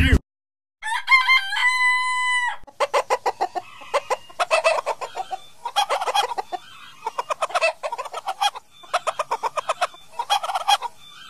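A rooster crows once, a stepped, held call starting about a second in and lasting nearly two seconds. Chickens then cluck in quick rapid-fire bursts, repeating every second or so.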